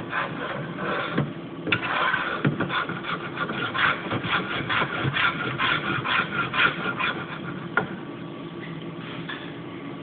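A hand tool scraped over wood in quick repeated strokes, about three a second, dying away near the end.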